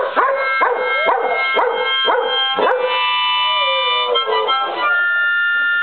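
A Shepherd-Chow mix dog singing along to a harmonica: a run of short yowling barks, each falling in pitch, about two a second, over held harmonica notes. After about three seconds the dog stops and the harmonica carries on with sustained chords.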